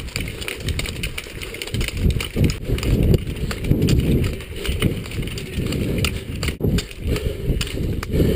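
Footfalls and ski-pole tips striking a gravel path in a quick rhythm as runners bound uphill with poles in moose-hoof (elghufs) training, heard close from a camera carried by one of them, with a low rumble from its movement.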